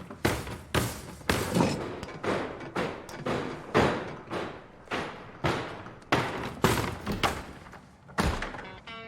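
Music with a heavy, steady drum beat of about two hits a second, with pitched music coming in near the end.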